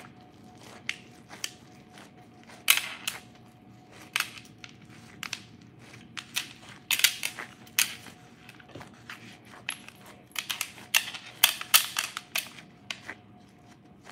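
Hands in thin plastic gloves pressing and patting raw ground beef mixed with diced onions into a meatloaf: irregular squishes and crackles, often several in quick succession.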